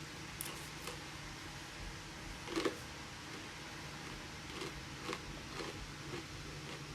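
Quiet room tone: a steady low hum with a few faint soft knocks, the clearest about two and a half seconds in.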